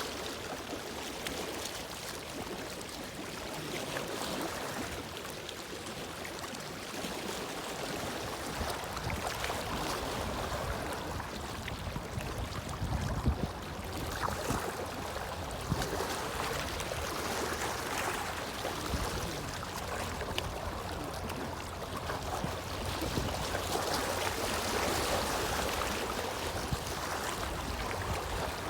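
Water moving and lapping against the shore or boats, with wind buffeting the microphone; the sound swells and eases gently.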